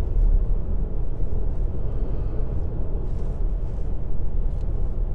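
Steady low rumble of a moving car, engine and road noise running evenly.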